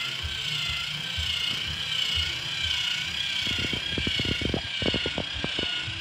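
Small electric motor of an RC model tipper trailer whining steadily as it raises the body, its pitch wavering. From about halfway through, the load slides out and clatters into a cardboard box in a quick run of knocks.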